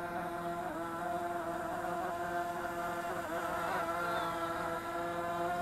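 Electric motors and propellers of an E-flite X-Vert VTOL model buzzing steadily as it hovers, the pitch wavering slightly in the middle as the throttle is adjusted.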